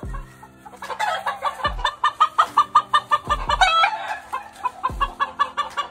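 Chickens clucking in a fast, even run from about a second in, over background music with deep falling bass notes about every second and a half.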